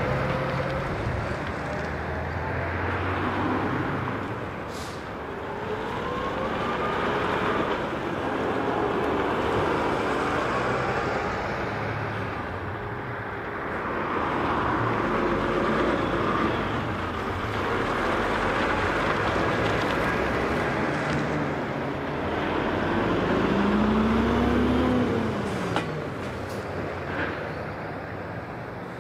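Heavy trucks driving past one after another, their diesel engines and tyres swelling and fading with each pass. Near the end one engine's pitch rises and then falls as it goes by.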